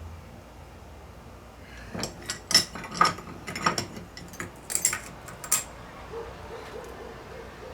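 Steel transmission parts clinking and clattering as they are handled and set down: a quick run of sharp metallic clicks with a bright ring, starting about two seconds in and ending after about five and a half seconds.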